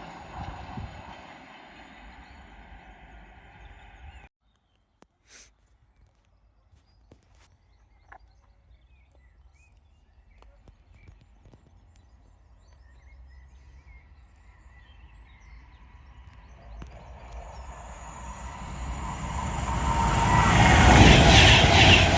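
Railway noise fading, then cut off abruptly about four seconds in. After a quiet stretch, a train approaches on the main line, growing steadily louder and passing loudly near the end.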